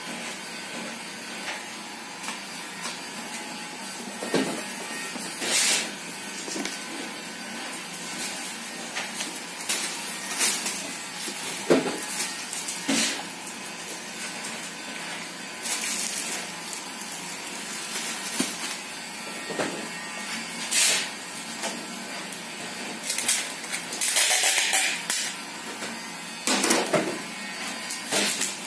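Hands packing a gift box: bubble wrap and packaging rustling and crinkling in short irregular bursts, with a few light knocks as the box is handled, over a steady background hiss.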